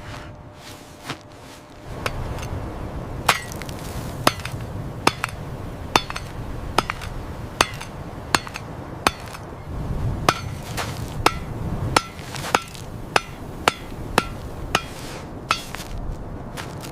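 A long series of sharp hammering blows, one to two a second, each with a short metallic ring, over a low rumble.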